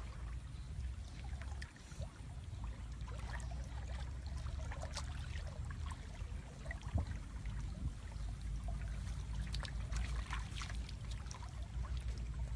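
Shallow muddy water splashing and sloshing around wading legs and groping hands, in many short irregular splashes that grow busier near the end, over a steady low rumble.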